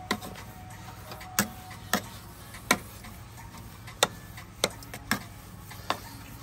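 Metal slotted spoon knocking and scraping against an aluminium pot while stirring thick semolina halwa: about eight sharp clinks at irregular gaps of roughly half a second to a second.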